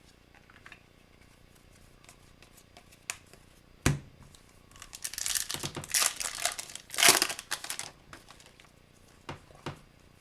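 Foil wrapper of a hockey card pack crinkling and tearing as it is opened, with a sharp click about four seconds in and the loudest crinkling between about five and eight seconds.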